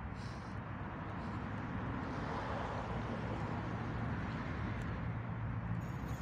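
Steady low outdoor background rumble, of the kind distant road traffic makes.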